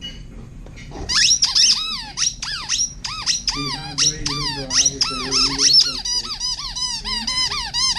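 A purple hedgehog squeaky toy squeezed over and over in an Alaskan Malamute's jaws as it chews. The rapid string of short squeaks, several a second, starts about a second in and keeps going.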